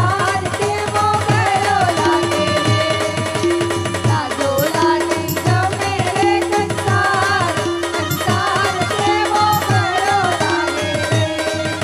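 Live Gujarati wedding folk song: women singing a wavering melody into microphones, accompanied by tabla, electronic keyboard and a drum keeping a steady beat.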